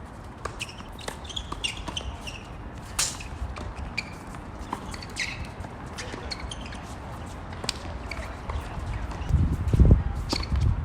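Tennis ball struck by racquets in a rally, a sharp pop every couple of seconds, over a low wind rumble on the microphone that gusts louder near the end.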